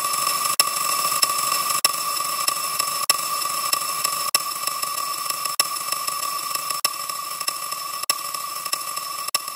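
A steady electronic drone: a held high hum over hiss, cut by a brief click or dropout about every second and a quarter.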